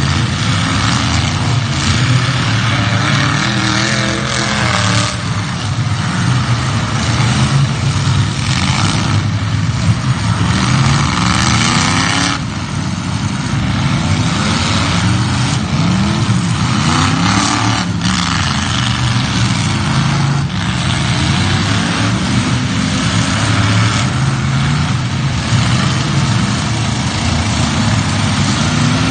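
Demolition derby car engines revving hard and unevenly, their pitch rising and falling again and again as the cars accelerate and back off.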